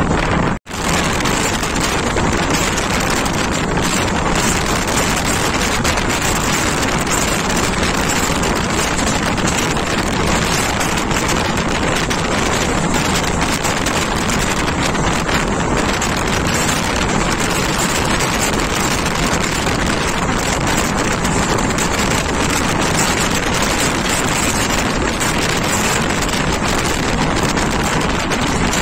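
Running noise of a moving express passenger train heard from an open window, with wind rushing over the microphone: a loud, steady rush that drops out for a moment just under a second in.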